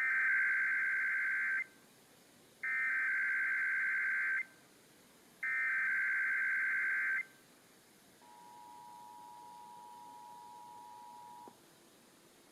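Emergency Alert System broadcast tones: three screeching SAME data-header bursts, about a second apart, then the two-tone EAS attention signal (853 and 960 Hz together), which holds for about three seconds and cuts off suddenly. This is the header and alert tone that open a Required Monthly Test.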